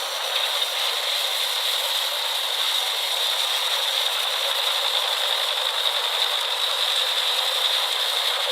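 Industrial drum wood chipper running, a steady mechanical rattle and hiss with no bass.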